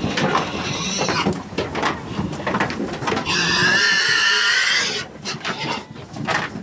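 Pigs crowded in a livestock transport trailer making short grunting sounds. About three seconds in, one pig lets out a long, loud, wavering squeal that lasts nearly two seconds.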